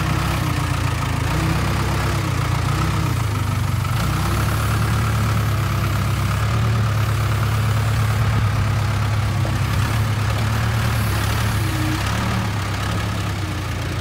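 Case backhoe loader's diesel engine running steadily as the machine drives slowly forward.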